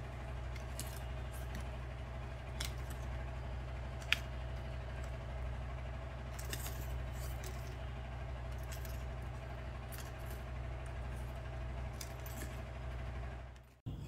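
Pruning shears worked on a green leafy stem: sparse light clicks of the blades and one sharp snip about four seconds in, over a steady low hum.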